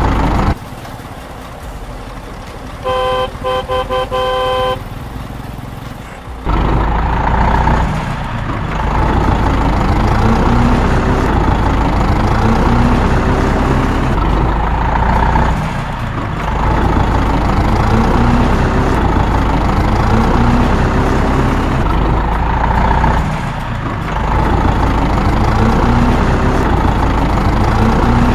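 A vehicle horn tooting several short times in quick succession, then a steady vehicle engine sound that swells and dips about every seven or eight seconds.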